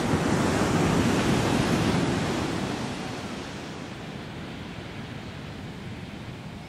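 Ocean surf washing onto a beach, with wind on the microphone; louder for the first two and a half seconds, then dropping to a quieter steady wash.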